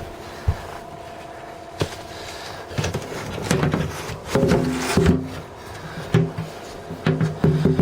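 Wooden drawers and cabinet doors on a boat being opened and closed by hand. There are a couple of sharp knocks, then from about three seconds in a stretch of short rattling, creaking and knocking sounds.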